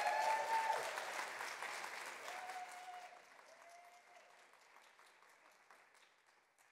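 Audience applauding, loudest at first and dying away over about five seconds, with a few drawn-out calls from the crowd in the first few seconds.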